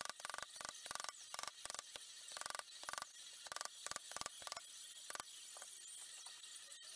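Chasing hammer striking a steel punch into 1.5 mm steel sheet set in chasing pitch: a quick, even run of sharp metallic taps, about three to four a second. The taps stop a little after five seconds in, leaving only a few faint ticks.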